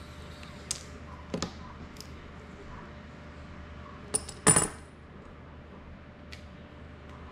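Small metal hand tools and parts clinking as they are picked up and set down on a work table: a few light clicks, with a louder double clatter about four and a half seconds in.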